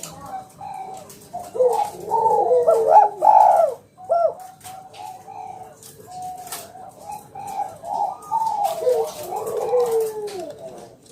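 Spotted doves (tekukur) cooing in overlapping phrases, loudest about two seconds in and again near the end, with softer cooing between and scattered short clicks.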